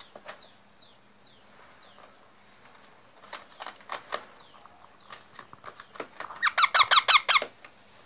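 Young parakeets chirping. Faint short falling chirps come first, with scattered clicks. About three-quarters of the way in comes a fast run of about ten loud squeaky calls.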